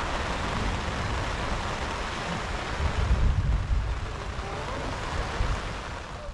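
Overland vehicle driving slowly over tall grass to flatten it, engine running under a steady rush of noise with low rumbling, a little louder about three seconds in.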